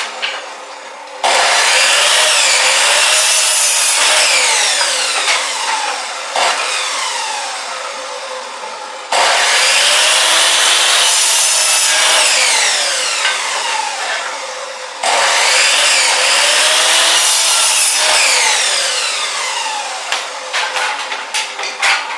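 Electric chop saw cutting wood three times: each cut starts abruptly, about a second in, about nine seconds in and about fifteen seconds in. The motor's whine dips and rises in pitch as the blade goes through the board, then fades before the next cut.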